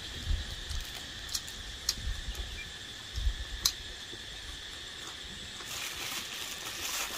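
Steady high-pitched insect drone, with a few sharp clicks and soft low thumps; a hiss of noise builds near the end.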